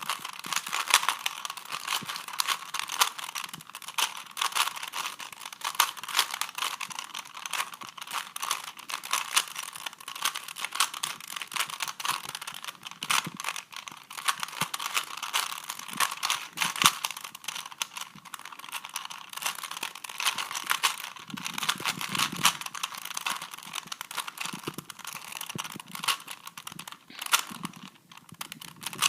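A 3x3 Rubik's cube being turned quickly by hand during a speed solve, a dense run of plastic clicks and clacks as the layers rotate.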